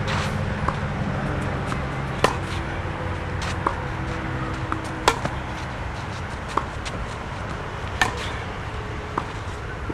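Tennis ball struck back and forth in a baseline rally on a clay court: sharp racket pops about every one and a half seconds, every other one louder, with softer ball bounces between. A steady low rumble runs underneath.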